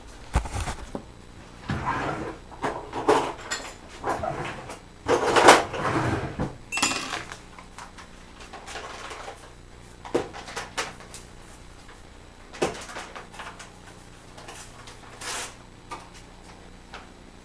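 Kitchen clatter of pots, dishes and utensils being handled: a run of irregular knocks and scrapes in the first several seconds, then a few single knocks, over a faint steady low hum.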